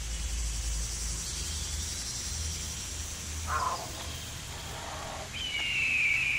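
Jungle ambience sound effects: a steady low rumble under a high hiss, a short swish about three and a half seconds in, and a high falling bird call near the end.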